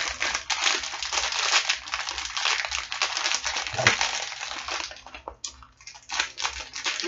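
Silver foil blind-box bag being crinkled and torn open by hand: a dense run of crackling rustles that thins to a few scattered crinkles about five seconds in.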